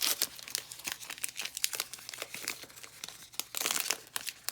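Foil booster pack wrapper crinkling and tearing as it is opened by hand: a rapid, irregular run of crackles.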